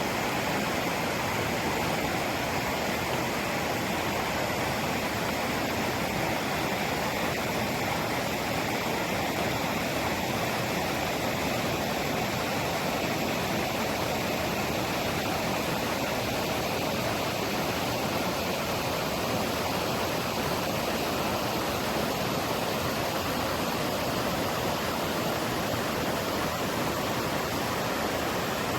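Fast-flowing river rushing over stones, a steady, even rush of water.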